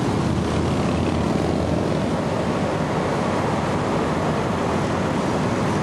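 Steady, dense engine noise from a large pack of motorcycles riding past on the highway, with no single machine standing out.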